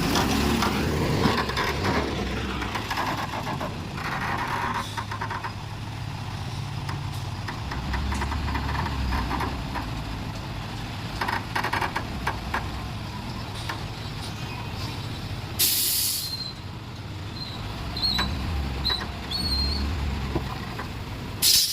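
Diesel engine of a construction crane running steadily, with two short, sharp hisses of released air, one about two-thirds of the way through and one at the very end.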